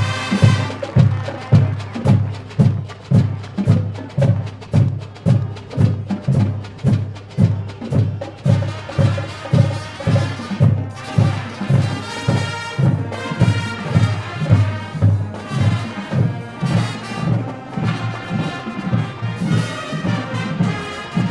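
High school marching band playing, with a steady low drum beat about twice a second and percussion; brass chords come in about eight seconds in and carry on over the beat.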